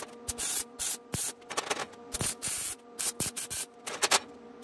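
Wire-feed welder tack-welding thin sheet steel: about a dozen short crackling bursts, each under half a second, with pauses between them. Background music plays underneath.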